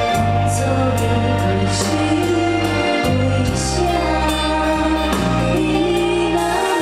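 Live pop ballad performance: sung vocal harmonies over a band with bass and cymbals.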